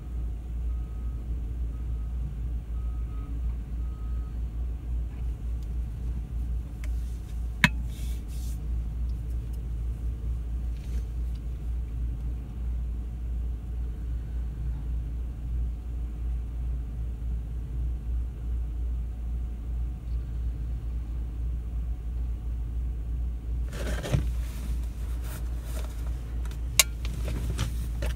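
Heavy diesel equipment running with a steady low rumble as a bulldozer crawls onto a lowboy trailer. A backup alarm beeps faintly over the first few seconds, and a few sharp knocks sound, the loudest about eight seconds in.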